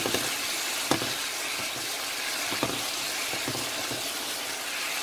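Sliced mushrooms and onions sizzling steadily in a pan of simmering sauce, with a couple of light knocks as a silicone spatula stirs them.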